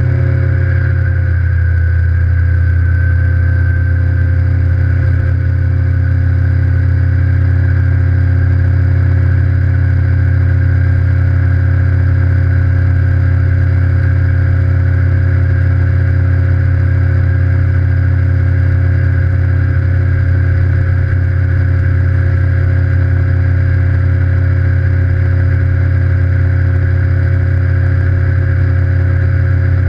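Evinrude E-TEC 150 H.O. two-stroke direct-injection outboard running at speed, a loud, steady drone with a strong low hum and a few steady whining tones above it. Its pitch settles slightly lower in the first second or two, then holds even.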